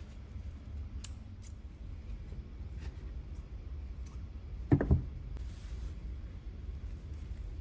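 Scissors snipping paper, with a sharp double snip about five seconds in, over a low steady hum.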